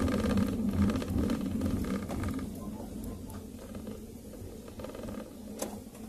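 Car running on the road, heard from inside the cabin: a low engine and tyre rumble that fades over the first few seconds as the car eases off. One sharp click near the end.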